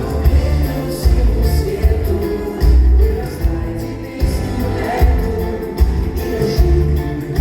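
Live pop song played through a concert hall's sound system: a singer's voice over a band with a heavy bass line.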